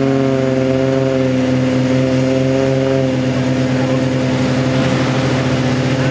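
Off-road vehicle engine running hard at steady high revs, its pitch holding nearly level throughout.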